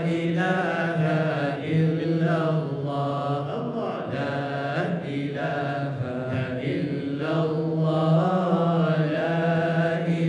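Group of voices chanting Sufi dhikr together, a continuous melodic chant.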